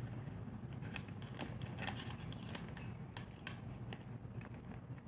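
Light, irregular clicks and taps of small parts being handled and fitted while a box fan's motor is put back together, over a steady low hum.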